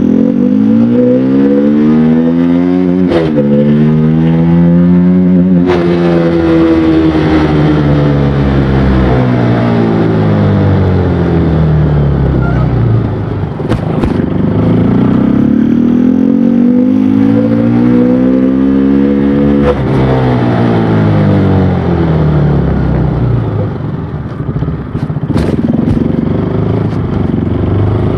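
KTM Duke 200's single-cylinder engine and exhaust under hard acceleration, the pitch climbing and dropping briefly at each gear change, then falling slowly as the bike eases off; the same climb and slow fall come a second time about halfway through.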